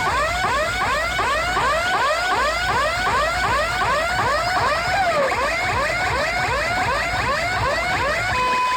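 Loud electronic siren-like warble: rapid rising chirps repeating about three times a second, with one dip and rise about halfway through. Near the end it switches to a steady held tone.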